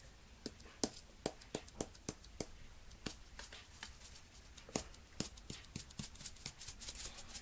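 Smoked salt shaken from a plastic sifter-cap shaker onto a metal spoon: a run of faint, irregular clicks and ticks, several a second.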